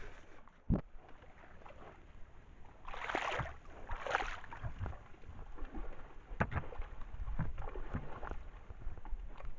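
Elk wading in shallow pond water right next to a trail camera's microphone. There is a single thump on the camera just under a second in, two splashy sloshes about three and four seconds in, then scattered smaller splashes and knocks.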